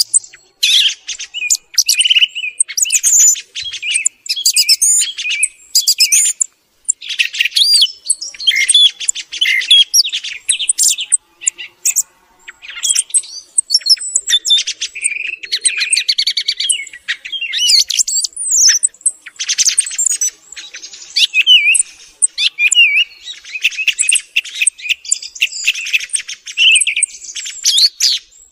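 Song thrush singing: a continuous run of loud, high-pitched phrases, many made of quickly repeated notes and whistles, separated by short pauses.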